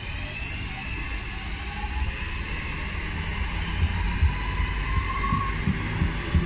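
Northern Class 323 electric multiple unit pulling out of the station, its traction motors giving a whine that slowly rises in pitch as it gathers speed, over a steady low rumble of wheels on rail. A few low thumps come in the second half.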